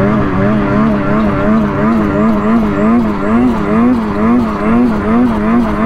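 Ski-Doo Freeride 146 Turbo snowmobile's two-stroke turbo engine running under way, its pitch rising and falling steadily about twice a second. The owner says the sled has been running weird all day.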